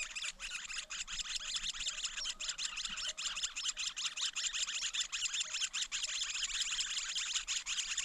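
Red-billed leiothrix nestlings begging: a steady, rapid, high-pitched chatter of many short overlapping calls.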